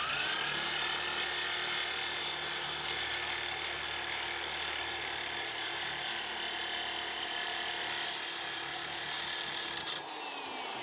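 Mid-torque impact wrench spinning a blade-sharpener stone against a steel lawnmower blade: a steady motor whine over grinding. It stops about ten seconds in and winds down with falling pitch. The sharpener vibrates heavily and wanders on the blade.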